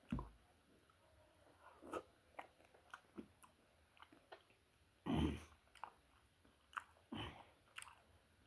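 A person chewing food close to the microphone: wet mouth clicks and smacks, with a few louder low thuds near the start and about two, five and seven seconds in.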